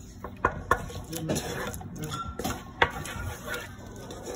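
Wooden spoon stirring garlic butter in a metal pot, scraping around the pot and knocking against it, with a few sharp knocks, the loudest about two-thirds of the way through.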